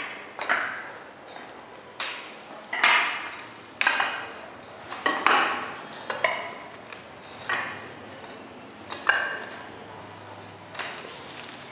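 Spiked floor shoes stepping across a wet floor coating: a sharp click as the spikes strike, then a short smack as they pull free, about nine steps spaced a second or so apart.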